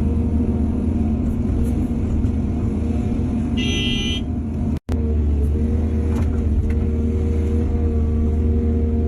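Excavator's diesel engine running steadily with a heavy rumble. About three and a half seconds in there is a brief high-pitched squeal, and just before five seconds the sound cuts out for an instant and resumes.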